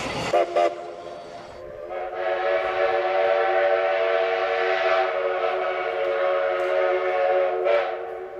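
Steam locomotive whistle: two short toots right at the start, then one long steady blast of several tones lasting about six seconds, swelling briefly just before it stops.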